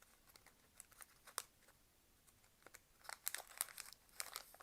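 Faint crinkling and rustling of small packaging, with scattered little clicks that come more thickly in the second half, as a Mini Brands miniature item is unwrapped.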